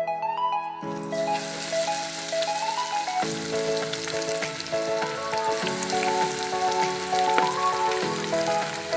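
Chicken frying in hot oil: a dense, steady crackling sizzle that starts about a second in, with background music playing over it.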